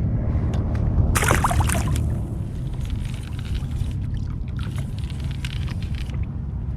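Water sloshing against a kayak hull over a steady low rumble of wind on the microphone, with a short splashy burst about a second in.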